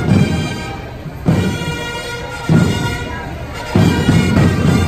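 Marching pipe band playing in the street: bagpipes holding steady drones under the tune, with heavy drumming that comes in in stretches of a second or so.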